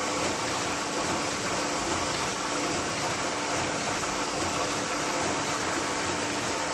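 Paper lid making machine running steadily: a continuous mechanical hiss and hum with a faint steady tone underneath.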